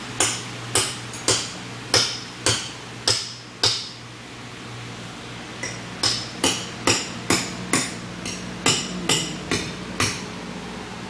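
Hammer blows in a steady rhythm of about two a second: a run of about seven, a pause of about two seconds, then another run of about nine. A steady low hum runs underneath.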